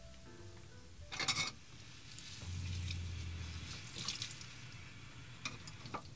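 Tap water running briefly into a small campervan sink, with the low hum of the van's water pump while the tap is open. A clatter comes about a second in, and a couple of sharp clicks come near the end.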